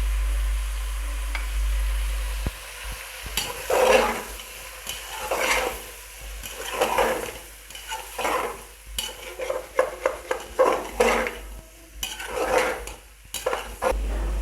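Spoon stirring and scraping goat trotters frying in masala in a metal pressure-cooker pot, the meat sizzling, with irregular strokes about once a second. A steady low hum comes before the stirring starts, a couple of seconds in.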